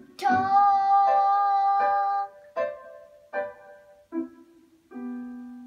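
Instrumental accompaniment playing the closing bars of a children's song. It plays one long held note, then three short notes that each die away, then another held note near the end.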